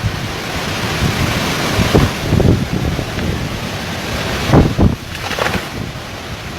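Storm-force wind blowing hard with rain, buffeting the microphone in a dense, steady rush, with a few brief wavering tones about two-thirds of the way through.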